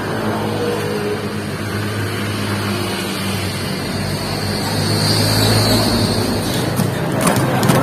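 Street traffic: a motor vehicle engine running close by, a steady low hum over road noise, loudest a little past the middle.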